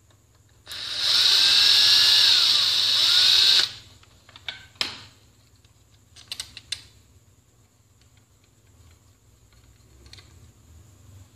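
Electric screwdriver running for about three seconds, its pitch shifting as it backs out the screws of a hand mixer's housing, followed by a few light clicks and taps of small parts being handled.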